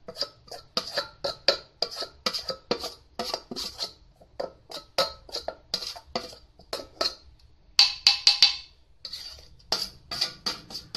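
Metal spoon tapping and scraping against a stainless steel bowl, knocking pounded herbs out into a clay mortar: a string of sharp, ringing clinks, two or three a second, with a quick flurry of them about eight seconds in.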